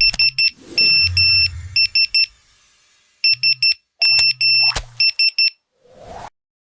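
Electronic phone-ringtone beeps in quick groups of short and longer high beeps, with a low buzz under them, plus a whoosh and a couple of sharp clicks.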